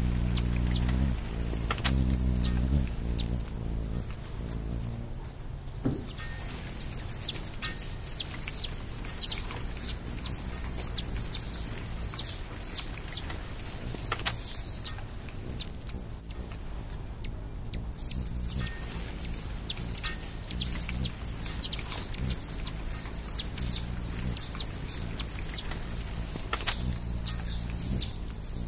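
Summer insect chorus: a steady high-pitched trill of crickets or similar insects, cutting out briefly twice.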